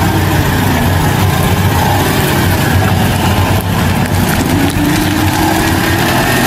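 Propane-fuelled Cat forklift engine running steadily as the truck drives, backs and turns, with a whine rising in pitch near the end.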